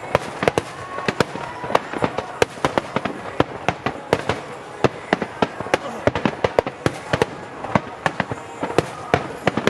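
Fireworks display: aerial shells bursting in quick, irregular succession, several sharp bangs a second, over the crackle and rumble of the show.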